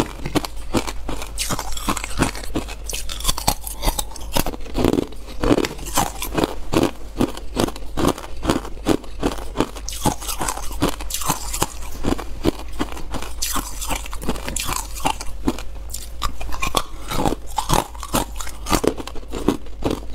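Ice being chewed, close-miked: a steady run of sharp crunches, several a second, as the pieces are bitten and ground between the teeth.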